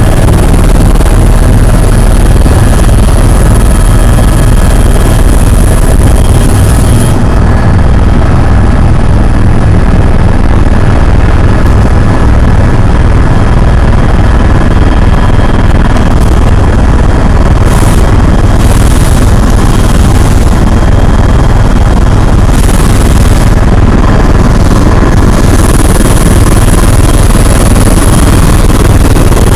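Helicopter in flight: a loud, steady low drone of rotor and engine with a thin steady whine above it.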